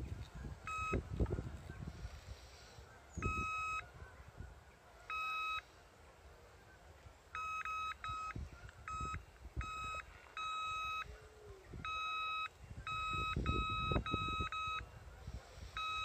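Electronic bite alarms on a carp rod pod beeping in an irregular run of single-pitch beeps, some brief and some about half a second long, as the line is drawn across the sensor while it is set slack with the swinger. Low handling knocks sound between the beeps.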